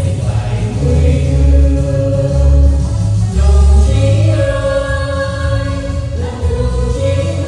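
A vocal trio singing a march song over a backing track with a heavy, pulsing bass.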